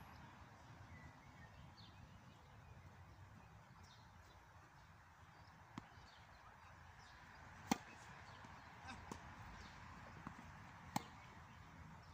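Mostly quiet, with about five sharp single knocks of tennis ball impacts in the second half. The loudest comes about two thirds of the way through and another near the end.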